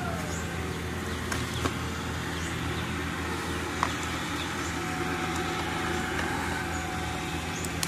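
Steady low background hum with a few faint, light clicks as a power plug and cord are handled and pushed into a power strip.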